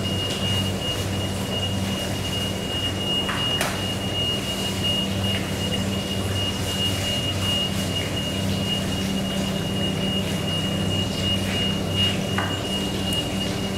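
A steady low mechanical hum with a constant thin high-pitched whine above it. A few faint clicks come as a long knife slices through a block of bluefin tuna on a wooden cutting board.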